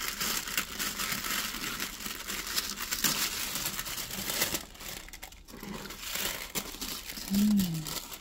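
Tissue paper crinkling and rustling as it is pulled back and unfolded inside a gift box. It is dense for the first four seconds or so, then lighter and sparser, with a short falling hum near the end.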